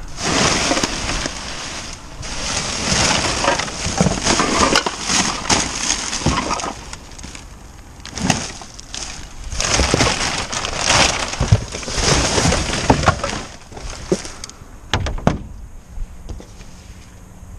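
Plastic bin bags and cardboard boxes crinkling and rustling as rubbish is rummaged through inside a plastic wheelie bin. The rustling comes and goes, with a few sharp knocks.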